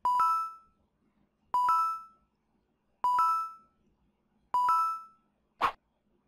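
Electronic two-note chime sound effect played four times, about a second and a half apart, each a quick rising ding-ding with a click at its start. Near the end comes one short, sharp tick as a countdown timer starts.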